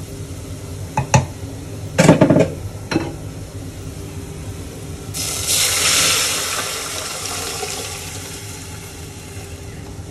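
A few knocks and clanks of cookware in the first three seconds. About five seconds in comes a sudden loud sizzle as blended dal is poured into a hot ghee tadka of fried spices and onion, hissing and slowly dying down.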